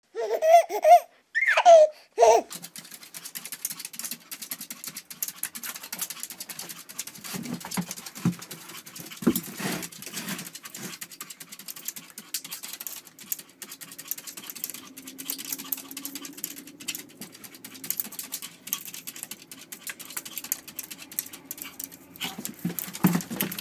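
A couple of seconds of short, loud bursts of laughter at the start, then a small dog's claws scrabbling against a glass sliding door: a long run of quick fine clicks and scrapes, with a few soft thumps.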